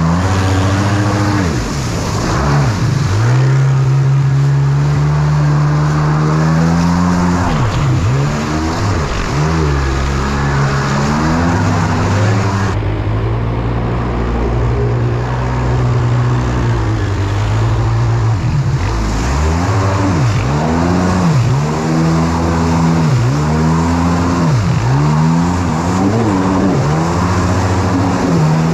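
Kawasaki 750 SXi stand-up jet ski's two-stroke twin engine running at speed. Its pitch holds steady at first, then drops and climbs again over and over, about once a second near the end. A hiss of water spray runs underneath.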